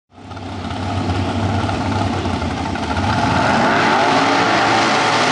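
Supercharged V8 of a front-engine dragster running loud, its pitch climbing in the second half as it revs up.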